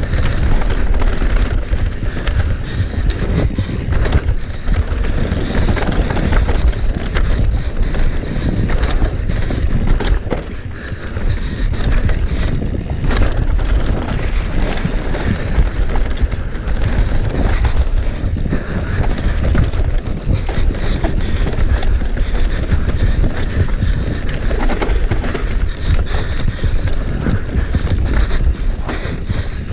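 Mountain bike ridden fast down a rough, rooty downhill trail: wind buffeting the microphone over the rumble of tyres on dirt. Frequent clatters and knocks come from the bike going over roots and small jumps.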